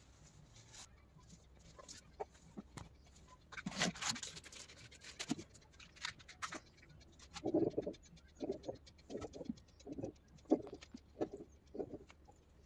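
Faint clicks and light handling knocks, then a run of about seven short, low animal calls, roughly one every three quarters of a second.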